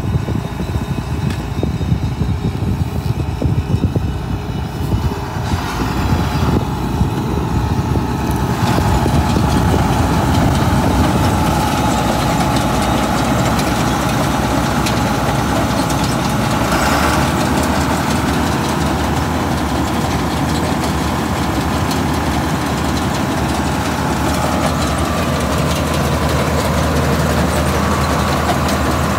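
John Deere combine harvester running, its diesel engine holding a steady low drone at idle. It grows a little louder and more even about nine seconds in.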